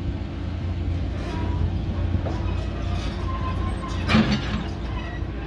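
Diesel engine of a hydraulic excavator running steadily, with a short, sharper noise about four seconds in.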